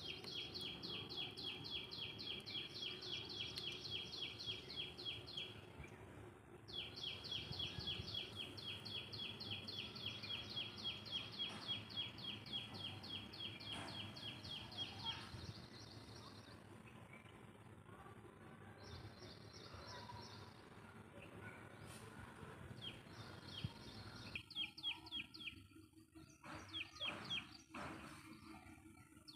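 A bird calling in long runs of sharp, high chirps repeated several times a second, with two long runs in the first half and shorter bursts and single chirps in the second, over faint outdoor background noise.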